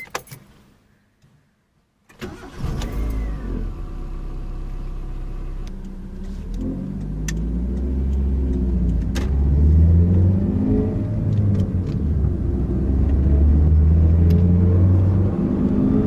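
A Proton Persona's 1.6-litre four-cylinder engine cranks and starts about two seconds in, then runs and rises and falls in pitch again and again as the car pulls away and accelerates, growing louder toward the end.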